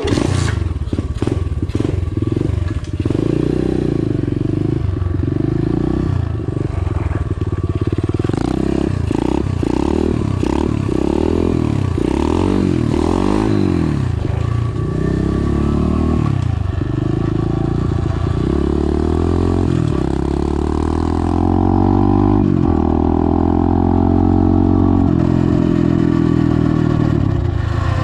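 SSR SR125 pit bike's 125cc four-stroke single-cylinder engine running as the bike is ridden. Its pitch rises and falls repeatedly as the throttle is worked, then climbs in longer, steadier sweeps in the last third as the bike pulls away through the gears.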